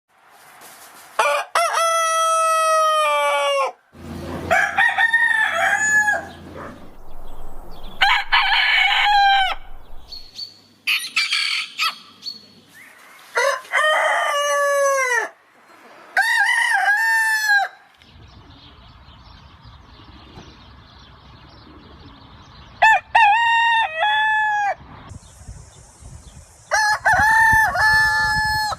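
Rooster crowing, about eight separate crows one after another, each lasting a couple of seconds and dropping in pitch at the end. Different roosters crow in turn, with a different background behind each crow.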